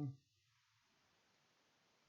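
Near silence: faint room tone after a man's last word trails off right at the start.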